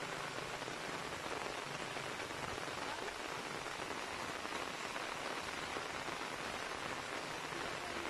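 Steady rain falling on water and leaves, an even hiss with no breaks.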